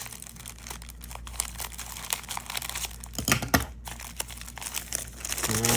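Packet of soft plastic fishing baits being handled and torn open by hand: irregular crinkling and crackling of the packaging, with a short tearing stretch. A man's voice begins just at the end.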